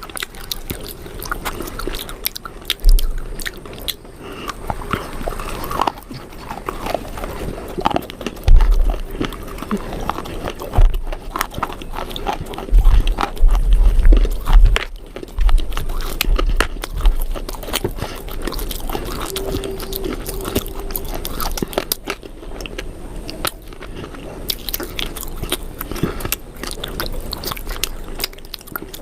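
Close-miked crunchy biting and chewing of something hard and brittle, a dense run of sharp cracks and crunches, with a few heavy low thumps near the middle.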